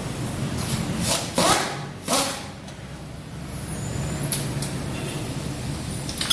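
A vehicle engine runs with a steady low rumble. It is broken by two loud, brief bursts of hiss, about one and two seconds in.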